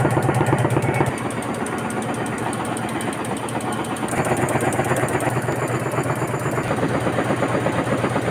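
Carpet tufting machines running: a steady, fast mechanical clatter of needles over a machine hum. The low hum eases about a second in.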